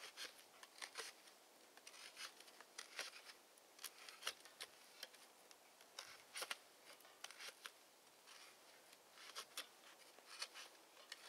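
Small fixed-blade knife (Atropos Knife "Krepysh", 9KhF steel) cutting a notch into a frozen branch on a stump: a run of faint, irregular, crisp clicks and cracks as the blade bites in and chips break away.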